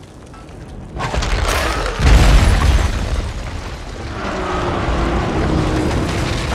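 Cinematic building collapse: a deep boom about two seconds in, then a long rumble of falling masonry and debris.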